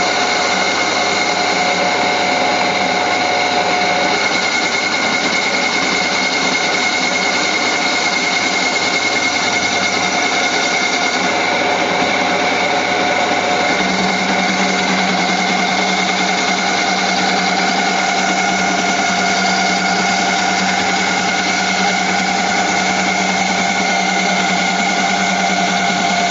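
Milling machine cutting a long slot, running steadily with several held whining tones over the cutting noise. About fourteen seconds in, its low hum steps up in pitch.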